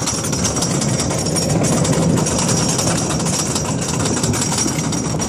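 Great American Scream Machine wooden roller coaster train climbing the lift hill, its lift chain clattering in a rapid, steady rattle.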